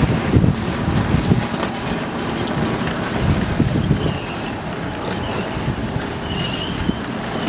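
Wind buffeting the microphone on a sailboat under way, a steady gusty rush. A few faint, short, high chirps come through about four seconds and six and a half seconds in.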